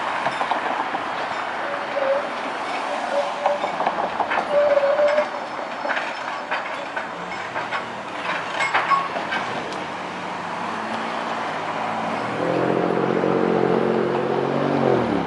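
SEPTA Kawasaki trolley car rolling through a street intersection on its rails, with many sharp clicks and clacks of the wheels over the track crossing and a few brief high tones. Near the end a steady low hum with several tones comes in and grows louder.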